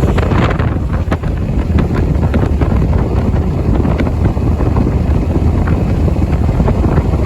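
Motorboat running at speed across open lake water, with heavy wind buffeting the microphone.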